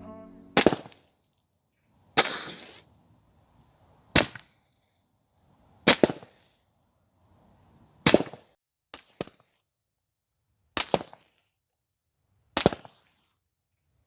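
A Roman candle firework going off shot after shot: about eight sharp pops roughly every two seconds, some followed by a short hiss or crackle.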